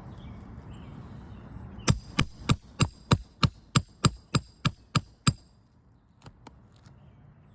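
Roofing hammer striking a metal nail-removal tool about a dozen times in quick, even succession, about three blows a second with a metallic ring, working a shingle nail loose.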